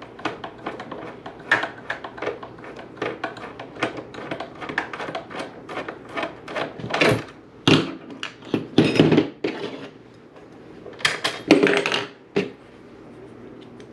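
Hand tools and small metal parts clicking and clattering as the drive strut is taken off an RC speedboat, with several louder knocks of parts set down partway through.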